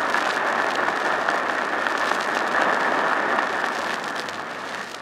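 Audience applauding, a dense steady patter of many hands clapping, muffled and dull as on an old 1940s recording, dying away near the end.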